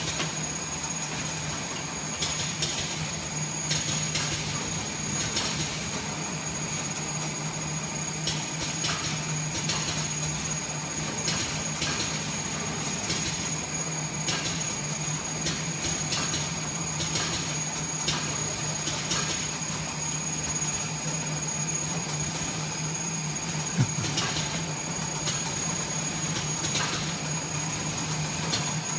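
TPU membrane laminating machine running: a steady hum from its geared drive motors and rollers, with a thin high whine above it. Sharp clicks and ticks come irregularly every second or two.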